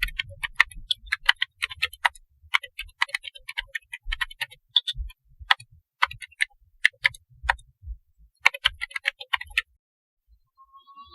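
A run of sharp, irregular clicks, some coming in quick clusters, with soft low thumps beneath, stopping about a second and a half before the end.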